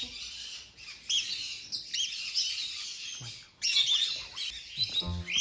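Many small parrots chirping and chattering at once, short rising-and-falling chirps overlapping. Music begins near the end.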